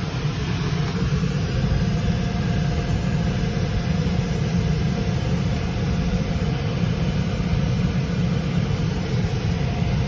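Wet/dry shop vacuum running steadily, a constant motor drone with rushing air, used to suck up water in the air handler's condensate area.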